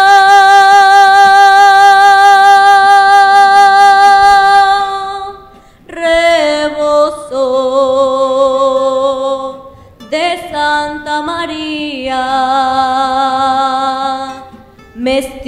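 A woman singing a fragment of a Mexican regional song. She holds one long note with vibrato for about five seconds, then sings shorter phrases with brief breaths between them.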